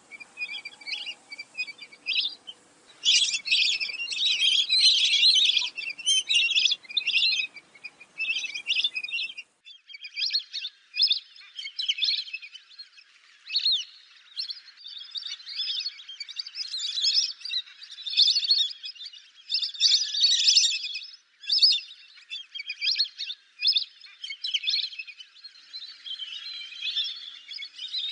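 A flock of lesser whistling ducks calling, many high whistled calls overlapping in rapid, uneven bursts. About a third of the way in, the low background hiss cuts out as one recording gives way to another.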